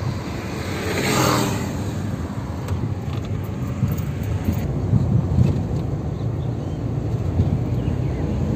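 Road noise inside a moving car: a steady low rumble of engine and tyres. About a second in, a louder swell of noise as a motorcycle overtakes.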